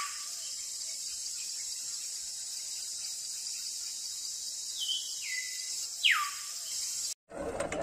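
A steady, high insect chorus like crickets, with a few whistled bird calls that fall in pitch, one at the start and one about six seconds in, and a shorter two-step call around five seconds. The chorus cuts off abruptly near the end.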